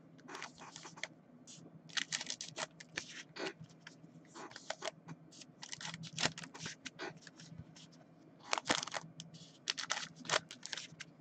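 Sealed foil trading-card packs being pulled from the box and stacked on a table: irregular light clicks, scrapes and crinkles of the wrappers against each other. A faint steady hum runs underneath.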